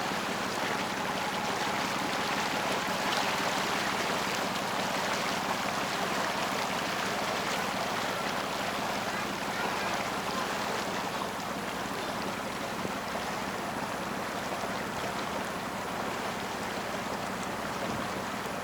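Steady rush of water from a motorboat under way, with no distinct strokes or tones.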